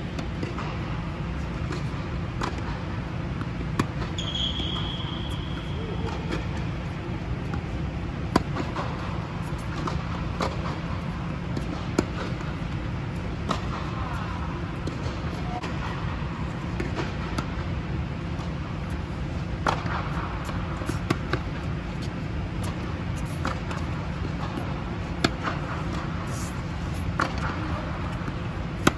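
Tennis rally: the ball is struck by rackets and bounces on the hard court, a sharp pop every few seconds over a steady low hum. A brief high squeak sounds about four seconds in.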